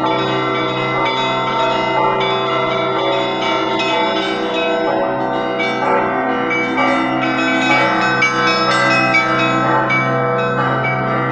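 Russian Orthodox church bells rung by one bell ringer: a deep bell hums steadily underneath while many smaller bells are struck in a quick, dense rhythm, their tones ringing on into one another.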